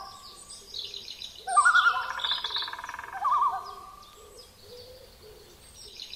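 Bird-call sounds in an intro jingle: a warbling call with quick wavering notes, backed by high chirps, loudest from about a second and a half in, then fading.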